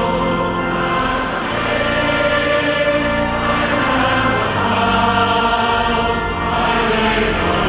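Choir singing a slow, chant-like piece in harmony, holding long notes that change every second or two.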